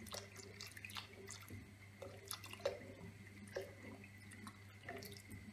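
A utensil stirring hot milk in a granite-coated non-stick saucepan as a starch mixture is slowly poured in: faint, irregular clicks and taps against the pot with light liquid drips and splashes, over a low steady hum.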